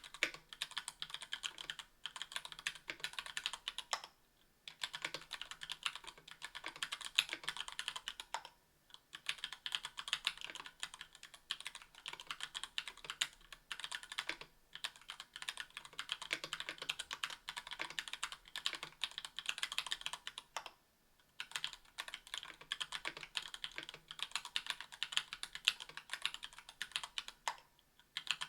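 Fast typing on a KBDfans Tofu 60% aluminium-case keyboard with stock Gateron Yellow Ink linear switches and GMK keycaps: a dense clatter of keystrokes in bursts, with short pauses every few seconds.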